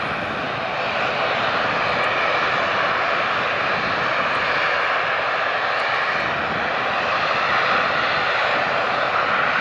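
Airbus A330-243's two Rolls-Royce Trent 700 turbofans running as the airliner moves slowly on the runway ahead of take-off: a steady jet rush that grows slightly louder about a second in.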